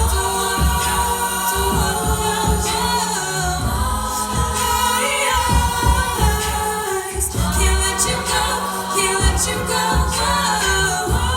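All-female a cappella group singing in close harmony, with a repeating low beat and clicks underneath.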